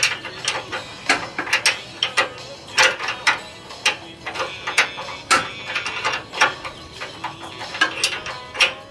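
Hand wrench turning the nut on the end of a 2003 Ford Expedition's rear control arm, metal clicking irregularly, a few clicks a second, as the nut is backed off.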